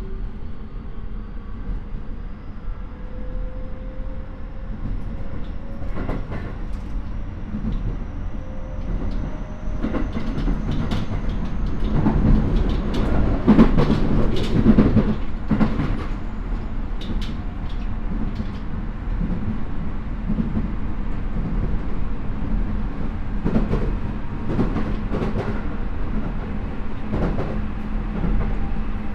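Keio 9000 series train with Hitachi IGBT VVVF inverter running at speed, heard from inside the motor car. A faint motor whine rises in pitch and fades out in the first several seconds, then the wheels clatter over rail joints over the steady rolling rumble, loudest about halfway through.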